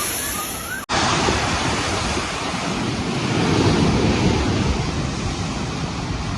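Typhoon storm noise: a steady rush of wind battering the microphone, mixed with rushing water. It drops out for an instant about a second in, then carries on.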